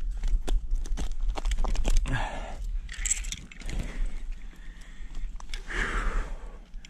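Metal climbing hardware clinking and rattling in quick, irregular clicks over a steady low rumble of handling noise on the microphone.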